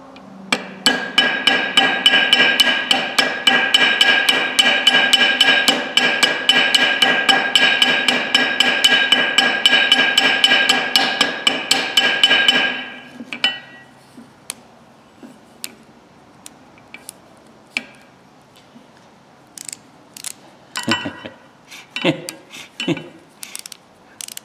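Small Craftsman hammer rapidly tapping metal on an anvil, peening a ratchet part over: about five light strikes a second, each with a metallic ring. The hammering stops about 13 seconds in, leaving scattered clicks and knocks of the part being handled.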